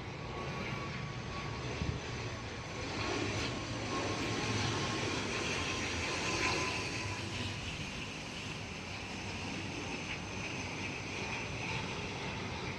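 Steady drone of a vehicle's engine with a rushing hiss, even and unbroken throughout, with a faint held whine.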